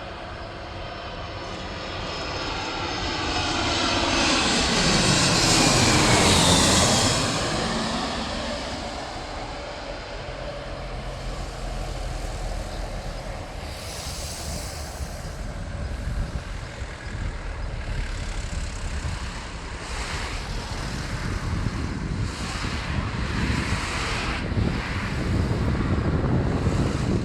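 Airbus A319 jet airliner passing low overhead on its landing approach. Its engine sound swells to a peak about six seconds in, with the pitch falling as it goes by. A loud, rough rumble then carries on and builds again toward the end as the jet lands.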